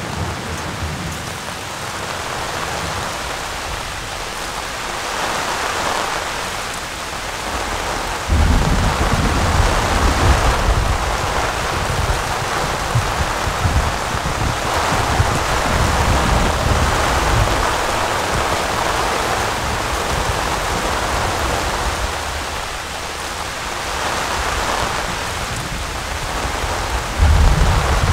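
Heavy rain falling steadily, a continuous hiss of drops. A low rumble comes in suddenly about eight seconds in and again near the end.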